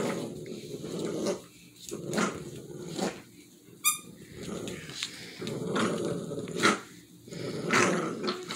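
Dog growling in repeated rough bursts while tugging on a toy, with a short high squeak about four seconds in.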